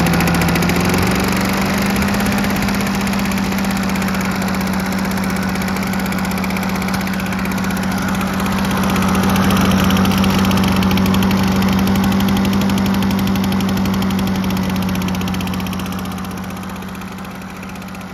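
Victa Mustang 160cc two-stroke lawn mower engine running steadily at full throttle, its pitch climbing a little in the first second or so and then holding even, fading slightly near the end. It is under-revving: at full throttle it only makes about 2850–2900 RPM.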